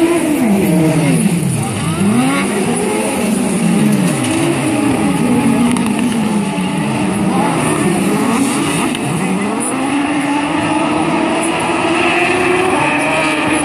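Engines of several autocross buggies racing on a dirt track, their pitch repeatedly falling and rising as they come off and back on the throttle through the corner, overlapping one another.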